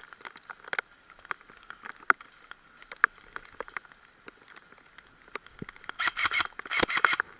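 Irregular light ticks and patter, as of rain drops, then near the end two quick bursts of rapid clicking, typical of an airsoft gun firing.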